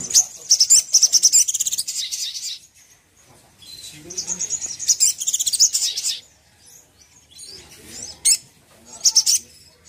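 Male olive-backed sunbird (sogon) singing: two bursts of high, rapid trilled notes of about two and a half seconds each, then a few short sharp chirps near the end.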